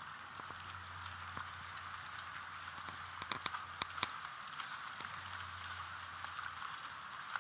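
Motorboat under way at slow speed: a steady hiss with a faint low hum that comes and goes, and a few sharp clicks about three to four seconds in.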